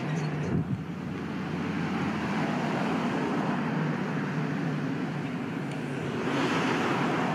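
Vehicles driving along a street: a steady rushing of engines and tyres, with a brief knock about half a second in and the noise growing louder near the end.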